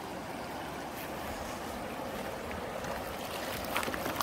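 River water rushing steadily over a rocky streambed, with a few short clicks about three and a half seconds in.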